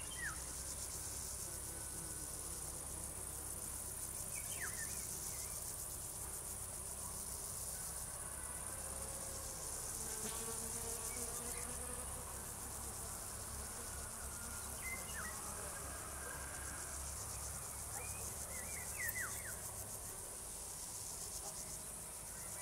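Crickets chorusing in a meadow: a steady, high-pitched trill. A few short, falling chirps sound now and then over it.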